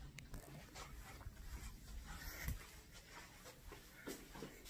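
Faint handling sounds, light taps and rustles of pencils, eraser and paper being moved about, over a low room hum.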